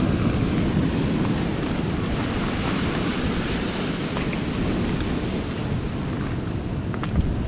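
Wind buffeting the microphone over waves washing in, a steady rushing noise, with a brief click near the end.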